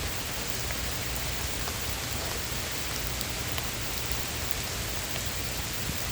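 Heavy rain pouring down steadily, with scattered sharp ticks of single drops striking close by.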